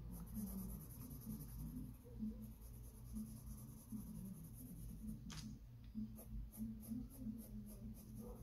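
Mechanical pencil shading on sketchbook paper: faint, repeated scratching strokes of graphite as a dark area is filled in, with one sharper tick a little past the middle.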